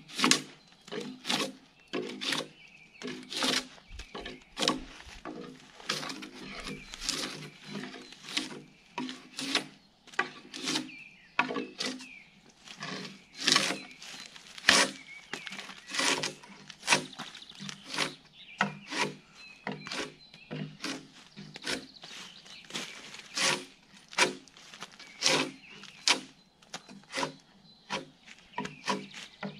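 Gränsfors Bruks drawknife peeling bark off a log in quick repeated pulls, each stroke a short scrape of the blade through the bark, about one to two strokes a second.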